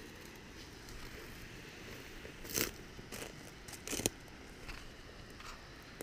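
A few short, irregular crunches and scrapes on loose rock, the loudest two about halfway through.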